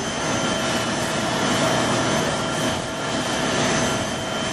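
Jet aircraft turbine running steadily: an even rushing noise with a high, steady whine.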